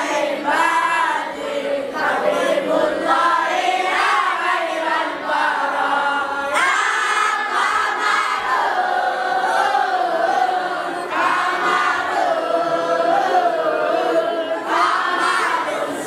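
Boys' choir singing an Islamic qasida together, many young voices carrying a melody.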